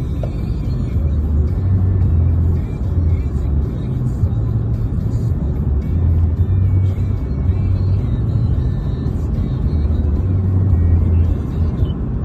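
Road and engine noise inside a moving car's cabin: a steady deep rumble.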